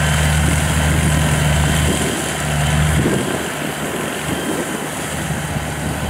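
Diesel engine of a tracked rice-sack carrier running steadily as it drives loaded through the rice stubble. Its low engine hum drops off about three seconds in.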